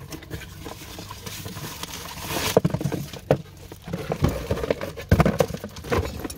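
A cardboard box being opened and a new double-DIN car stereo in a plastic bag lifted out and handled: plastic and cardboard rustling with irregular knocks and taps.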